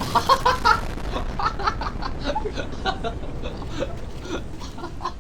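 Laughter: a long run of short laughing bursts, several a second, over a low steady rumble.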